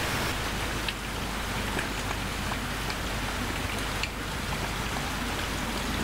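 Steady rain falling, an even hiss with a few sharper drop ticks.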